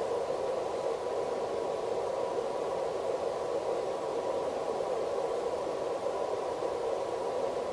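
Steady, even hiss of recording noise with no distinct event in it.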